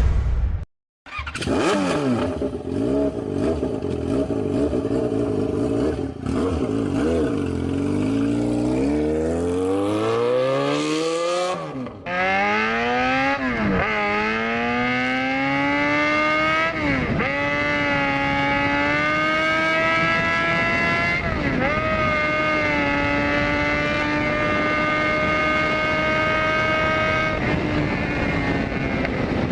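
Motorcycle engine accelerating: after a brief silent gap, the revs climb slowly for about ten seconds, then it pulls hard through several gear changes, the pitch rising and dropping back at each shift, before holding steady at high revs.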